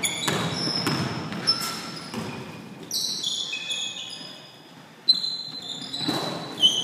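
Basketball bouncing on a hardwood gym floor, with sneakers squeaking as players cut and stop, echoing in the large hall. The hits come irregularly, with a lull and then a sharp thud about five seconds in.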